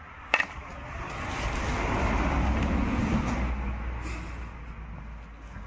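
A sharp click just after the start, then a rumbling rush of noise that builds over a couple of seconds and fades away again: a vehicle passing by.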